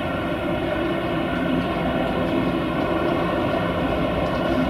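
The four Rolls-Royce Trent 900 turbofans of an Airbus A380 running at taxi power: a steady jet rumble laced with several held whining tones.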